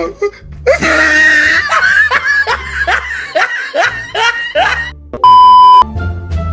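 A person laughing in a run of about ten rhythmic 'ha' bursts over background music, then, about five seconds in, a loud steady beep lasting about half a second.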